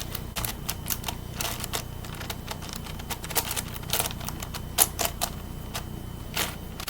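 Plastic layers of a 9x9 Rubik's cube being turned by hand, giving a quick, irregular run of sharp clicks and clacks, several a second, some louder than others.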